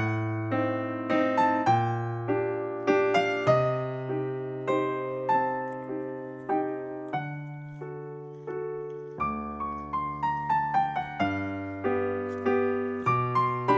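Background piano music: a gentle melody of struck, fading notes over a slowly changing bass line.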